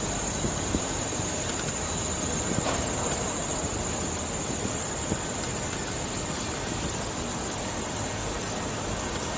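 Steady wind and rolling noise from a bicycle moving along a paved path, with a constant thin high whine and a few faint clicks.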